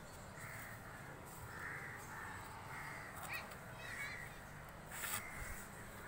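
Crows cawing repeatedly in a string of short harsh calls, with a brief sharp noise about five seconds in.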